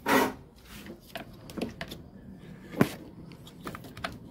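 Hands rustling and clicking among a washing machine's wiring harness and plastic connectors: scattered small clicks with one sharp click a little under three seconds in, after a brief noisy burst at the start.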